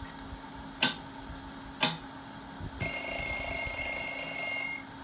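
Two sharp clicks about a second apart, then a steady high electronic ring lasting about two seconds, from an on-screen quiz game.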